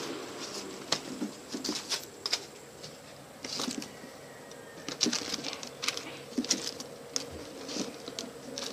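Scattered light clicks and rustles of toys being handled: foam squishy toys taken out of a plastic basket and packed into a cloth shopping bag.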